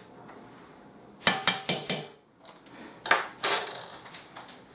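A small metal spoon clinking and scraping against a small glass jar as bronze colourant powder is spooned out. The clinks come in two quick runs, about a second in and again around three seconds in.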